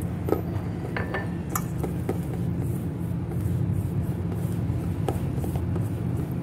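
A hand mixing flour, curd and oil in a stainless steel bowl, with scattered light clinks of the hand against the steel, over a steady low hum.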